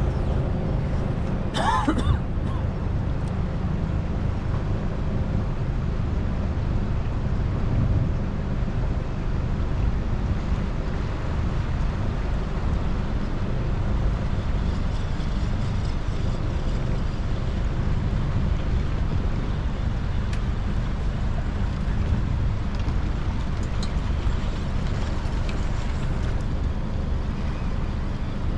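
A boat's motor running steadily under way, a continuous low rumble with wind buffeting the microphone.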